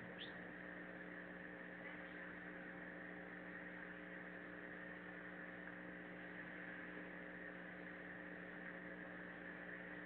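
Steady electrical hum of several fixed tones over a low hiss, the self-noise of a security camera's built-in microphone. One short rising chirp sounds just after the start.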